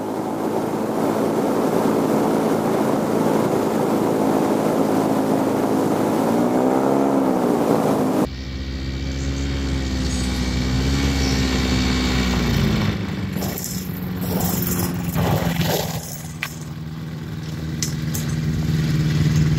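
Rotax 582 two-stroke engine of an ultralight, heard first from on board on the landing approach, its pitch dipping and rising as the throttle changes. About eight seconds in, the sound cuts to the same kind of engine heard from the beach as the plane runs on the gravel bar, with a low wind rumble on the microphone for a few seconds, a few clicks, and then a steady engine note.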